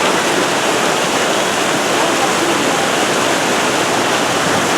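Steady rush of sea surf washing onto the beach.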